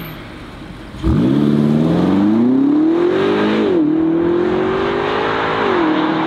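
BMW X6 M Competition's twin-turbo V8 launched at full throttle from a standstill about a second in. The revs climb and drop back at two upshifts, near the middle and near the end, as the car accelerates away.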